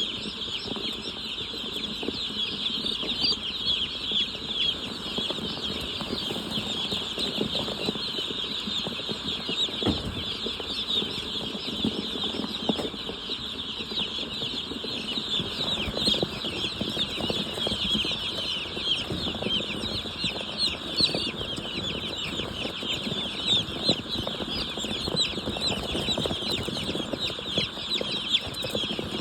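A large flock of broiler chickens peeping and clucking all at once: a dense, steady chorus of high chirps that never lets up.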